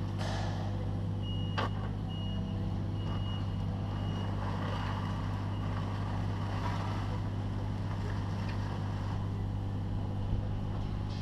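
Takeuchi TB216 mini excavator's diesel engine running steadily under work, with a high alarm beeping a few times in quick succession about a second in and a single sharp knock among the beeps.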